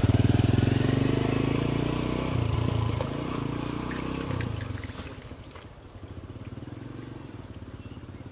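An engine running with a fast, even throb, loud at first and fading away over about five seconds. After it has faded, faint scattered clicks remain.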